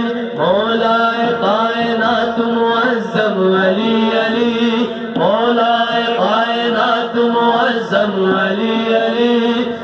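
Men's voices chanting a Sufi devotional nasheed, holding long melodic notes and sliding between them in phrases of a few seconds.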